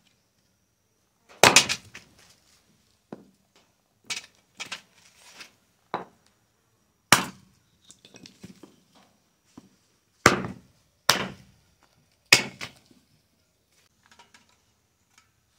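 Firewood being chopped for a cooking fire: about eight sharp, irregularly spaced blows, each ringing briefly, the loudest about a second and a half in and again near seven, ten and twelve seconds in.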